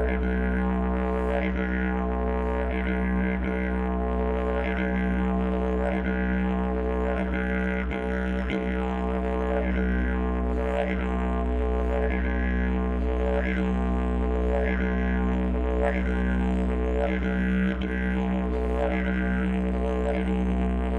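Didgeridoo playing a steady, continuous deep drone, its overtones swept in a regular rhythm about once a second as the player shapes the sound with mouth and breath.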